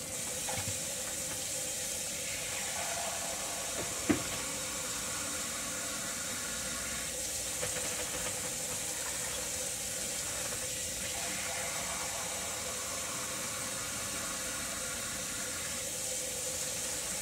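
Kitchen tap running steadily as water is drawn into a measuring container, with one short click about four seconds in.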